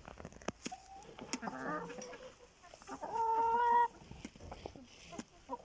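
Chickens clucking and calling, with one louder drawn-out call about three seconds in and a few sharp knocks scattered through.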